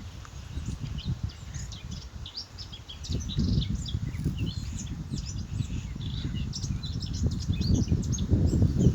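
Small birds chirping and twittering, many short high calls, over a low rumbling noise that grows louder about three seconds in.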